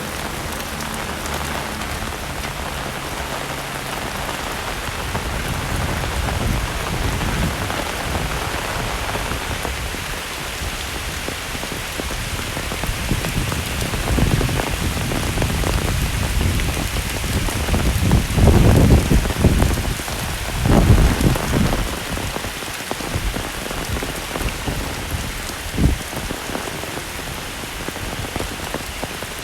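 Heavy rain falling steadily. A few deep rumbling surges come about two-thirds of the way through, and there is one short low thump near the end.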